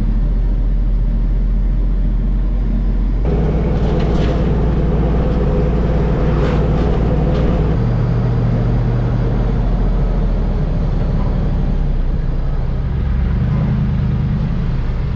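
A vehicle driving: steady engine and road noise, shifting in tone about three seconds in and again near eight seconds.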